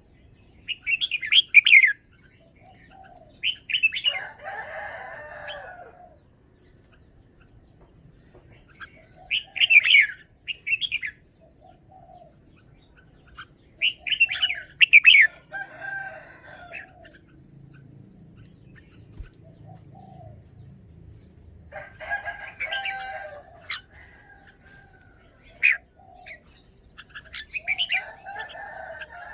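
Red-whiskered bulbul singing: short, bright whistled phrases of quick up-and-down notes, repeated about every four to five seconds, several trailing into lower warbling chatter.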